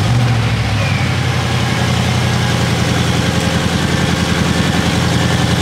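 Audi RS7's twin-turbo 4.0-litre V8 on its stock exhaust, idling steadily just after start-up.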